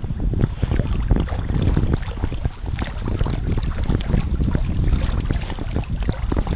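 Water splashing and sloshing right at a camera mounted on a swimming Labrador, a dense churning rush with wind on the microphone.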